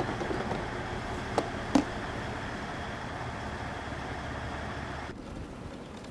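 A stopped train running steadily, with two sharp knocks close together about a second and a half in. A little after five seconds the sound cuts off abruptly to a quieter, steady outdoor noise.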